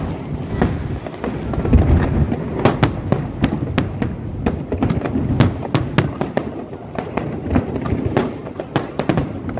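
Aerial fireworks shells bursting in quick succession: a continuous deep rumble of booms with many sharp cracks scattered through it.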